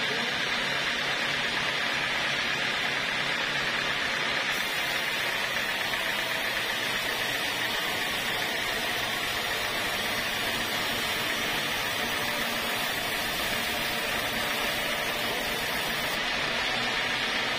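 Sawmill band saw running with a steady whir. From about a quarter of the way in until near the end, a hissier sawing sound joins it as the blade cuts through a length of acacia timber on the carriage.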